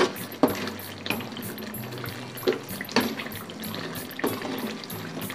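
Metal ladle stirring thick chicken curry gravy in a metal kadai: wet sloshing of the gravy with several sharp clinks of the ladle against the pan.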